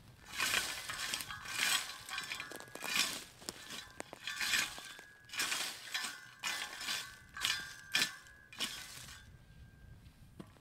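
Garden rake drawn through a wood-chip mulch, its tines dragging and clinking through the chips in a run of quick scraping strokes that stop near the end.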